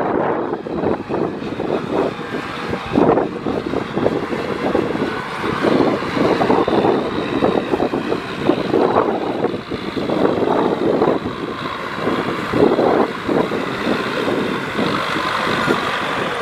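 Diesel farm machinery engine running under load, its sound rough and rising and falling in loudness every second or so.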